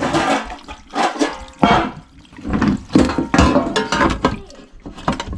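Water pouring and splashing out of a disconnected dishwasher drain hose in uneven loud surges: the standing water left in the machine because its drain pump has died.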